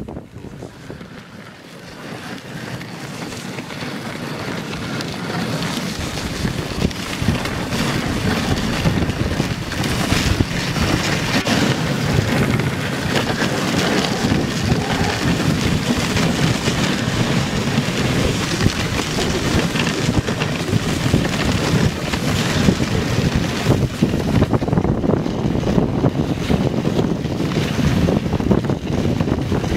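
A dog sled moving fast over snow: a steady scraping rush of the runners and wind buffeting the microphone. It starts quieter and builds over the first few seconds, then holds steady.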